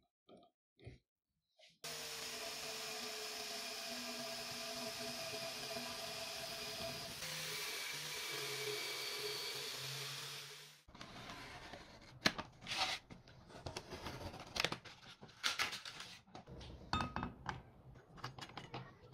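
Angle grinder fitted with a belt-sander arm running steadily and sanding into plywood for about nine seconds, then cutting off abruptly. After that come irregular light clicks and knocks as a cutting disc on the grinder is handled.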